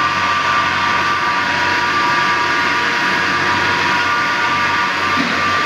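Steam boiler running: a loud, steady hiss with a constant high tone through it.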